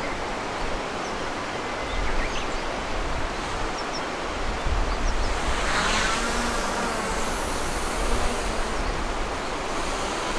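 Steady rushing of river water flowing over rocks. Near the middle a passing vehicle swells and fades over it.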